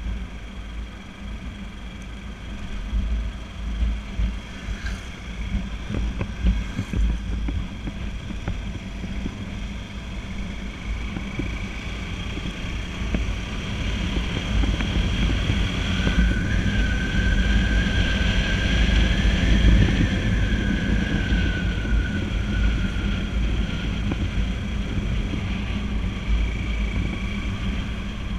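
Motorcycle on the move: its engine running steadily under heavy wind rumble on the action camera's microphone. Around the middle a whine rises and then falls away again over several seconds.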